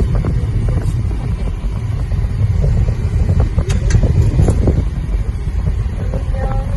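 Wind buffeting the microphone: a loud, uneven low rumble, with a few faint clicks near the middle.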